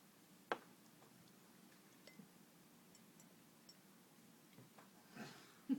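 Near silence, broken by one sharp click about half a second in and a few faint ticks: a cat dipping its paw into a cup of milk and licking it off.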